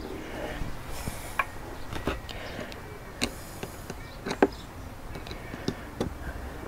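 Scattered small clicks and taps of screws, a Phillips screwdriver and metal mounting brackets against a clear plastic windshield as the screws are started loosely by hand, with light handling noise between them.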